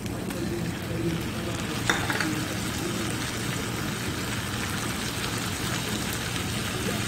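Strips of meat and onion frying in a non-stick pan, a steady sizzle, while diced tomato and chopped green pepper are tipped in from bowls. A single light tap sounds about two seconds in.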